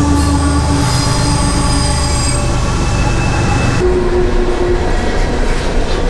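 Loud train passing on the tracks above the creek, its wheels squealing in several steady high tones over a continuous low rumble. The squeal tones shift abruptly about four seconds in.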